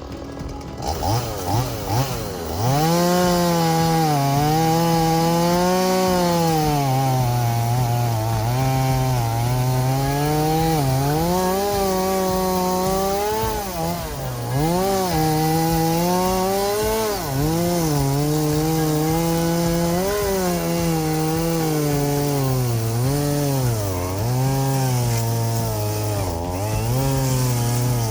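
Chainsaw cutting wood: a few short revs, then the engine running hard, its pitch dropping and rising over and over as the chain bites in and frees up.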